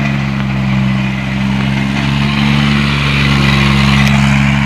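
Engine of a student-built Formula SAE race car running steadily at low revs as the car pulls away, growing slightly louder towards the end.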